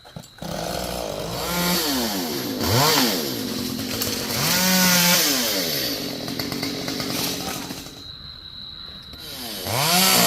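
Chainsaw starting up about half a second in and revving up and down repeatedly, dropping to a low idle about eight seconds in before revving high again near the end.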